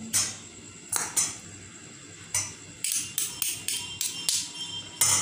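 Metal spoon clinking and scraping against a stainless steel bowl while stirring mayonnaise into a shredded chicken and vegetable filling. About a dozen irregular clinks, some ringing briefly, coming quicker in the second half.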